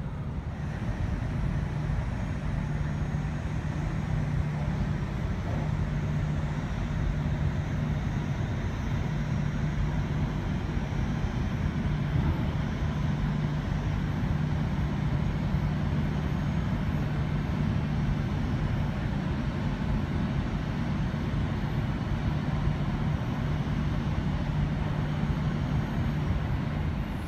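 Steady low rumble and hum of jet aircraft on the airport apron, muffled through the terminal window glass, with no change through the whole stretch.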